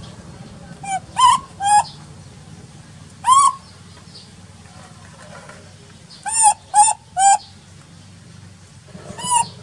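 Baby macaque crying: short, high-pitched arching cries, a few in quick succession about a second in, a longer one a little later, three in a row past the middle, and one more near the end.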